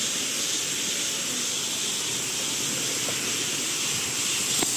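Steady rushing hiss of a small waterfall splashing down a rock face, with a brief click near the end.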